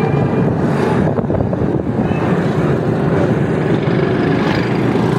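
Steady, loud engine and road noise of a motor vehicle driving through traffic, heard from aboard.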